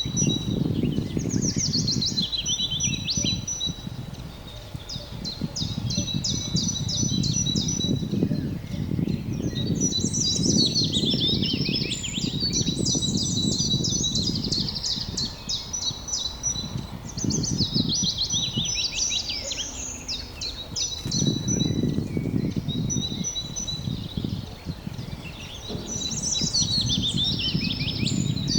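Songbirds chirping and singing in quick runs of repeated high notes, several birds overlapping, over a low rumbling noise that swells and fades every few seconds.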